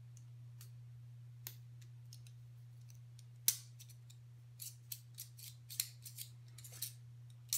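Sharp metallic clicks and small scrapes from a metal utility knife being handled and its blade slider worked, one louder click about three and a half seconds in and a run of quick clicks near the end. A faint steady low hum runs underneath.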